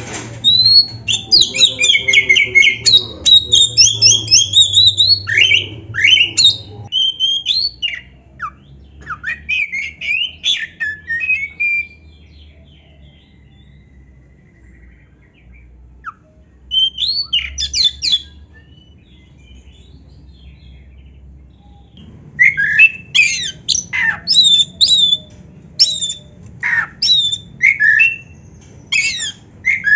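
Oriental magpie-robin (kacer) singing vigorously: loud, fast runs of varied whistles, chatters and harsh squawky notes. The song falls mostly quiet in the middle, apart from one short burst, then starts up again at full strength near the end.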